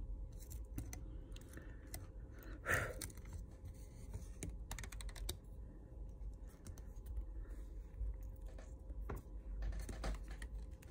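Scattered light clicks and scrapes of fingers and a small tool working on a phone's frame, clearing off the remains of the old screen glass, with one louder sound about three seconds in.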